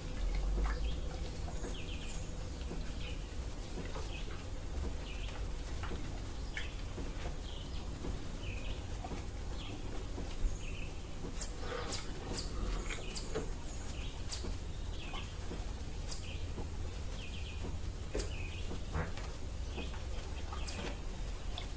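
Small birds chirping in short repeated calls over a low steady rumble, with a few sharp clicks in the second half.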